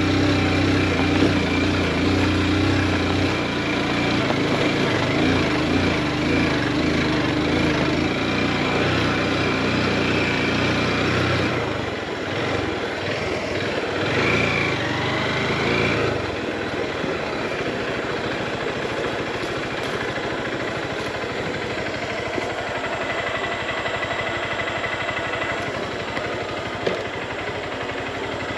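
Small single-cylinder motorcycle engine running under way, with road noise. Its note changes about twelve seconds in, then runs on with a fast, even beat.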